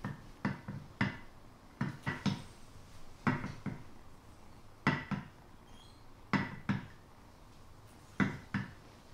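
A large ice ball knocking against a glass baking dish as a kitten paws at it: sharp hard knocks and clicks in irregular pairs and small clusters, roughly every second or so.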